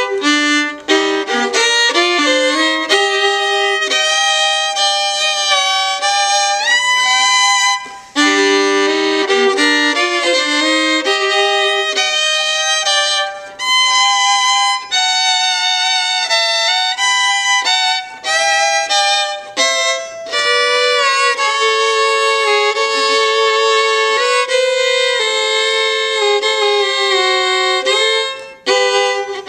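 Panasoffkee Guarneri-model fiddle played solo, a bowed waltz melody with some notes sliding up into pitch and short breaks between phrases.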